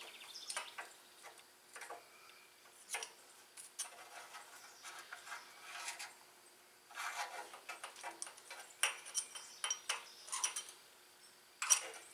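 Metal hand tools clinking and clattering as they are handled: scattered sharp clicks coming in short clusters, with pauses between.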